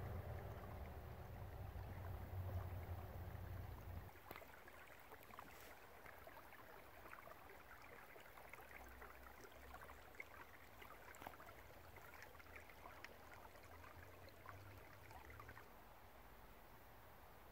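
A low rumble for the first four seconds, then a small, partly frozen creek trickling and gurgling softly, full of small crackles and splashes; it gives way to a faint hiss near the end.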